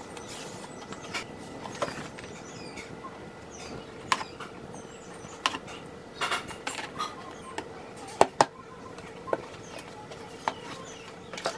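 Handling noise: scattered sharp clicks and knocks over a steady faint hum, with a close double knock about eight seconds in.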